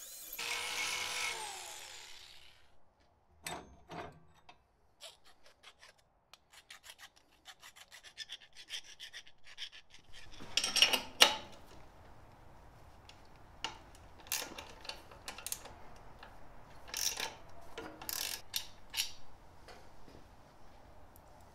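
Electric drill boring through a metal bracket, its motor whine falling as the drill spins down about two seconds in. Then scattered light clicks and scrapes of handling, and in the second half sharp metal clinks of tools and parts.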